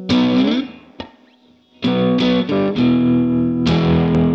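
Electric guitar played through a Vox amplifier: a strummed chord that rings and fades, a brief pause, then several quick strums leading into a sustained ringing chord, with a fresh strum near the end.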